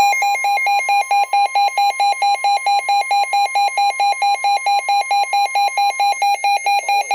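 A weather radio's alert for a flash flood warning being received: rapid, even alarm beeping, about six beeps a second, over the station's steady long warning alert tone. The steady tone stops about six seconds in, and the beeping carries on to near the end.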